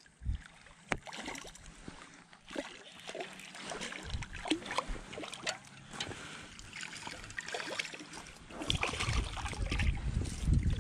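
Water lapping and trickling against a boat's hull, with scattered small irregular clicks and ticks. A low rumble comes in near the end.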